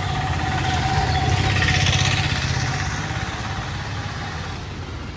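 A motor vehicle's engine passing close by, growing louder to a peak about two seconds in, then fading away.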